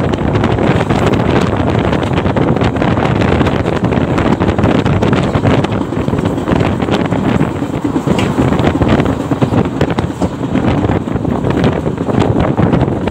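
Passenger express train running at speed, heard from on board: a steady rumble of wheels on track, with wind buffeting the microphone.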